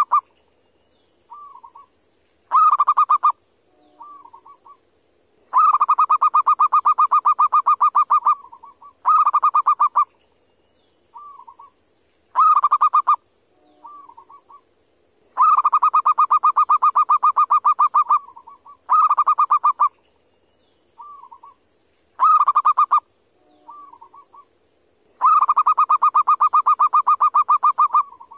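Zebra dove (perkutut) calling: a repeating coo phrase of short clipped coos and a long, rapid purring trill of about three seconds, with soft quiet notes between, the whole phrase coming round about every ten seconds. A steady high-pitched hiss runs underneath.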